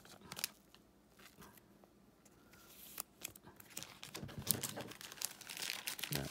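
Thin plastic card sleeves and trading cards being handled: light crinkling and rustling, sparse at first and busier from about three seconds in.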